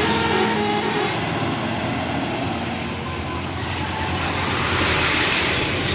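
Engine and road noise of a passing vehicle: a steady rushing hum with a low rumble. The last notes of a multi-tone telolet horn melody fade out in the first second.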